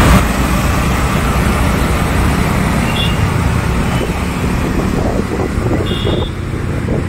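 Auto-rickshaw running along a city road, heard from inside its open-sided cab: a steady engine and road rumble mixed with surrounding traffic. Two brief high beeps sound, one about three seconds in and a slightly longer one near six seconds.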